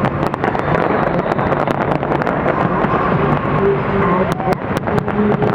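Fireworks going off: a rapid run of sharp cracks and crackles, thickest about four seconds in, over a constant loud din.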